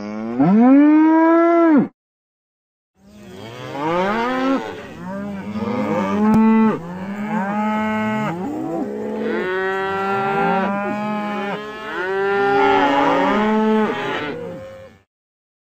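Cows mooing: one long moo, then after a short pause many moos overlapping one another for about twelve seconds, like a herd lowing together.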